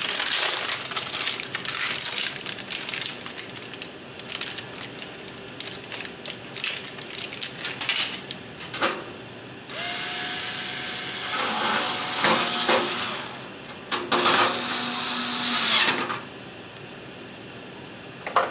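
Replacement fluorescent-light ballast and its wires being handled: rustling and light clicks at first. Then two stretches of scraping, a few seconds each, about ten and fourteen seconds in, as the ballast is worked up into the sheet-metal fixture.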